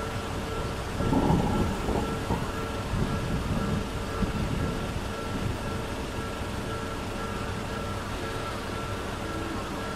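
Electric train passing over a railroad crossing: a low rumble swells about a second in and eases off over the next few seconds, over a steady noise with two faint steady tones.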